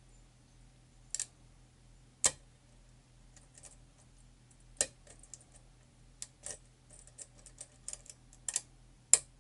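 Lock pick and tension wrench working the pins of a pin-tumbler challenge lock with a tight paracentric keyway: irregular small metal clicks and ticks, with sharper ones about two, five and nine seconds in. A faint steady hum lies underneath.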